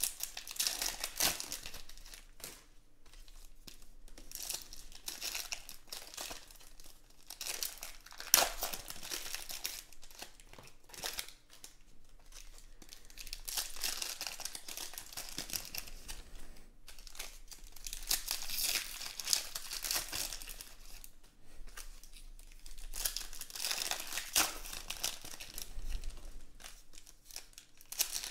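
Foil wrappers of 2020 Panini Contenders Football card packs crinkling and tearing as the packs are ripped open and the cards pulled out, in bursts every few seconds. One sharp, louder crackle about eight seconds in.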